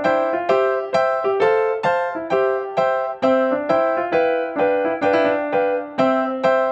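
Background music: a keyboard melody with notes struck about twice a second, each fading before the next.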